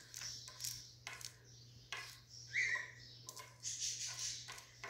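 Handling noise of a phone camera being moved: scattered light rustles and taps, with a brief squeak about two and a half seconds in, over a faint steady hum.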